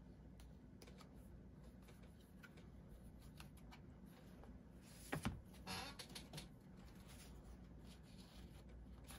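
Mostly near silence with faint handling sounds: scattered soft clicks, and a louder cluster of clicks and rustles about five to six and a half seconds in, as cards are slid into the slots of a leather wallet.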